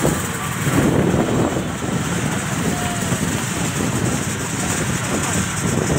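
Motor traffic running on a road, a steady mixed rumble with wind buffeting the microphone.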